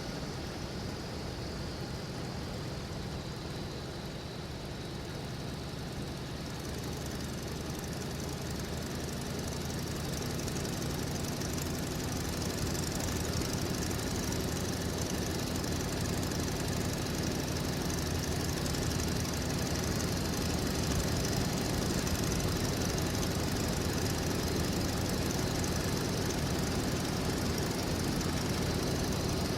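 Vehicle engine running steadily, growing louder over the first dozen seconds and then holding level.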